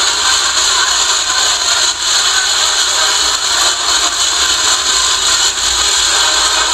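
Many matracas, the wooden ratchet rattles that morenada dancers spin, turning together in a dense, steady rasping clatter.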